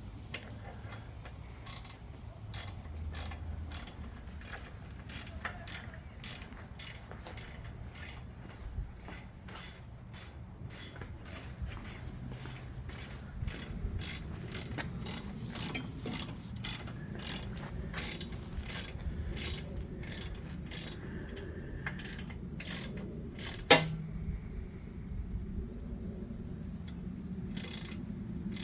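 Hand socket ratchet clicking steadily, about two clicks a second, as crash-bar mounting bolts are tightened on a motorcycle. One much louder sharp knock about three quarters of the way through.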